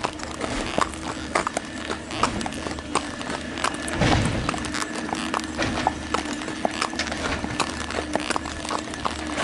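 Hooves of two walking horses clip-clopping on an asphalt road, an irregular patter of sharp strikes. A brief low rumble about four seconds in is the loudest moment.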